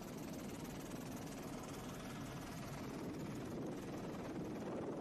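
Steady helicopter noise heard from on board, the engine and rotor running at constant power in a dense, even rumble.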